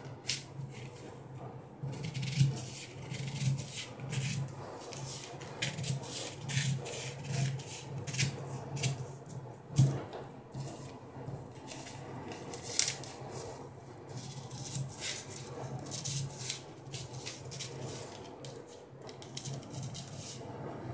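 Large steel tailoring scissors cutting through newspaper, a paper pattern being cut out along marked lines: a run of irregular snips with paper handling, over a low steady hum.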